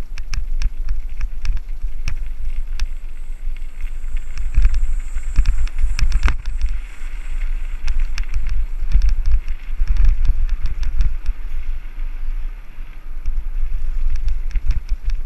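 Mountain bike riding down a rough trail: a steady low rumble of wind on the microphone, with rapid clicks and rattles from the bike jolting over bumps.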